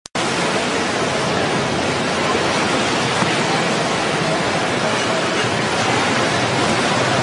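Steady rushing roar of the Ganga river in heavy flood, fast turbulent water running high.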